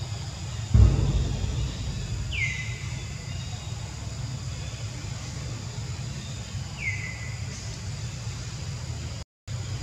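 Two short falling chirps from a bird, about four and a half seconds apart, over a steady low rumble, with a low thump about a second in. The sound cuts out briefly near the end.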